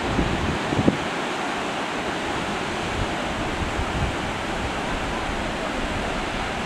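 Sea surf breaking onto a sandy beach as a steady hiss, with wind gusting on the microphone as uneven low rumbles.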